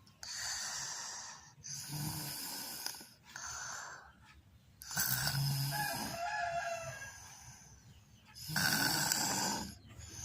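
A person snoring: a run of about five rasping snoring breaths. The longest, about halfway through, carries a wavering whistle-like tone that gives the snore an unusual sound.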